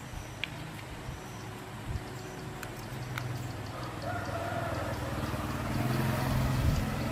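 A rooster crowing once, about four seconds in, over a low steady hum that gets louder toward the end.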